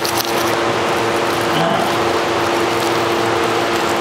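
Steady machinery hum with a constant low drone, and a plastic packet of coffee premix crinkling briefly at the start as it is handled.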